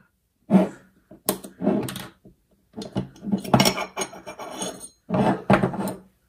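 A third-generation Glock pistol being field stripped by hand: a string of sharp plastic-and-metal clicks and clacks as the slide and parts come off the frame and are set down, busiest about halfway through.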